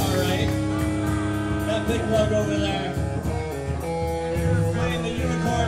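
Metal band playing live: electric guitars through amplifiers holding chords and notes, with bass and drums, in an instrumental passage before the vocals come in.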